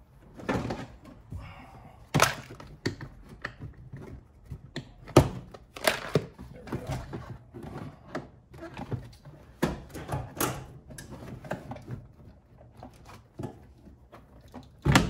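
Plastic center console of a Nissan Sentra knocking and clunking as it is worked loose by hand and lifted out: a string of irregular knocks and clicks, some sharp.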